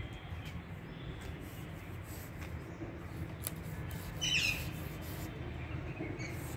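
Steady low outdoor rumble, with one brief high, squeaky chirp that bends in pitch about four seconds in.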